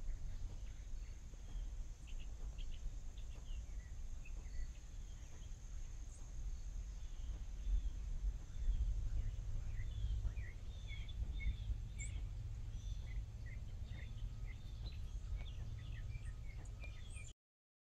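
Outdoor ambience of birds chirping in many short, quick calls, growing busier partway through, over a steady high-pitched insect sound and a low rumble. It all cuts off suddenly near the end.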